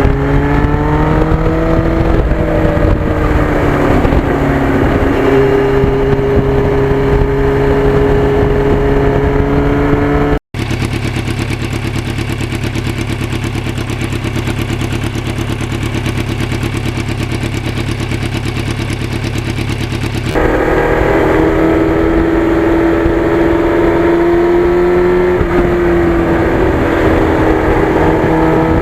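Yamaha FZR1000's inline-four engine running under way, its pitch rising and falling with the throttle. About ten seconds in, a cut leads to a steadier, lower-pitched stretch with an even, fast engine pulse. About twenty seconds in, it gets louder again, with the pitch rising and falling.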